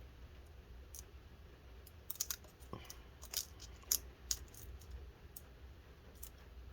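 Faint scattered clicks and light crinkles of adhesive tape being pressed back down onto a laptop motherboard by hand.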